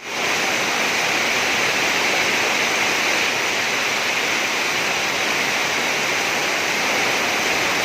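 Steady, dense rush of water from heavy rain and floodwater, an unbroken hiss that starts at once and holds level.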